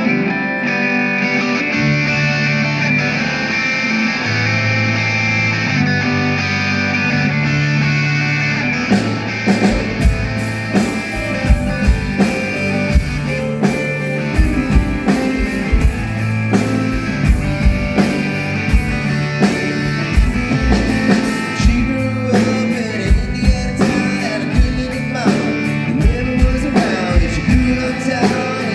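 Live band playing: held chords over a bass line, then the drum kit comes in about nine seconds in with a steady beat.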